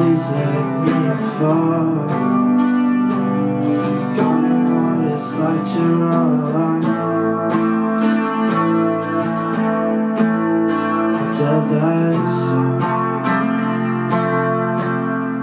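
Electric guitar playing a song, picked notes and chords in quick succession.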